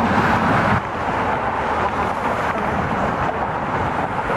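Steady rushing outdoor noise of wind on the microphone mixed with passing road traffic, dropping a little in level just under a second in.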